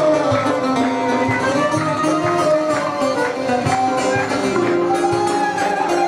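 Turkish folk ensemble playing live: a bağlama strummed, a bowed fiddle carrying a sliding melody, and a drum keeping a steady beat underneath.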